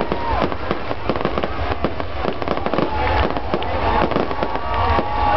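Fireworks display: a fast, continuous crackle of many small bursts, with whistling tones that bend and fall and then hold steadier in the second half.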